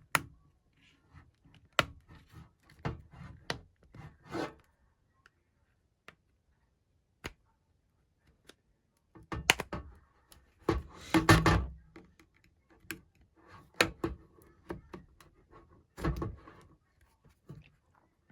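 Plastic pry tool scraping and clicking along the seam of a tablet's plastic case as it is worked open, in scattered short scrapes with sharp clicks, the loudest scrape about eleven seconds in.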